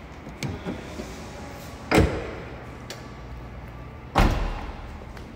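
BMW X5's split tailgate being shut: two heavy thuds about two seconds apart, with a couple of light clicks before the first.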